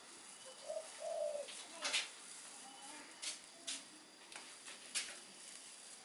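Dry straw of a woven nest basket crackling in short rustles as fingers handle the shrike chicks inside it, a few separate crackles over the seconds. About a second in come a few short, low cooing notes.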